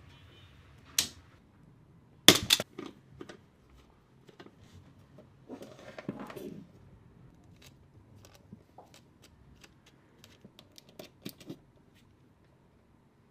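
Clicks, snaps and light taps from a smart wall switch and its parts being handled and fitted. There is a loud double snap about two seconds in, a brief rustle around six seconds, then a run of small ticks.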